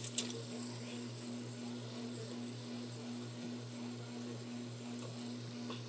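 Quiet room tone: a steady low hum with faint hiss, and two small clicks right at the start. Any sound from the fidget spinners is too faint to stand out.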